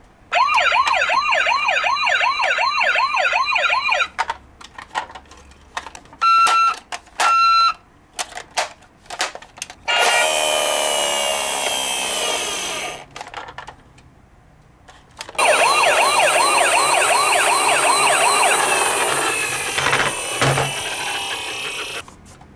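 Toy ambulances' electronic siren sound effects from their small built-in speakers. A fast, rapidly wavering siren plays for about four seconds, then come plastic clicks and two short beeps. A different siren comes in about ten seconds in, and another fast wavering siren from about fifteen seconds in.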